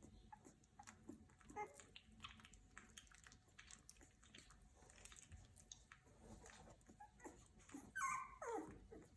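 Two-week-old puppies: faint wet smacks and small clicks of suckling and shifting, then about eight seconds in one short squeak that falls in pitch.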